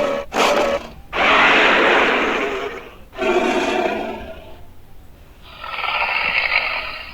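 Sound-effect calls of an invented alligator–monitor-lizard monster: a series of harsh, hissy roars, two short ones at the start, then a long one of about two seconds, another, and a last one near the end.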